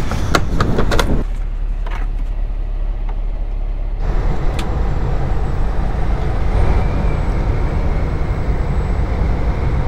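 Semi truck heard from inside the cab while cruising on a highway: a steady low drone of engine and road noise. A few sharp clicks and knocks come in the first second.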